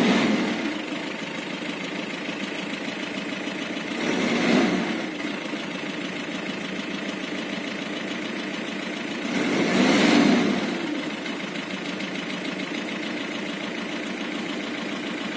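Isuzu Trooper diesel engine idling, with a knock that the owner is unsure comes from the valves or from the engine. It is revved briefly twice, about four and ten seconds in.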